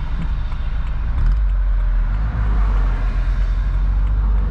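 BMW roadster driving: a steady engine rumble with road and wind noise, the low rumble getting louder about a second in.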